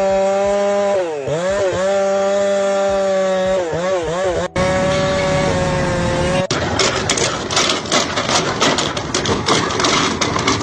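A motor running at a steady pitch that dips sharply and recovers several times. After a cut it gives way to dense, choppy clattering noise.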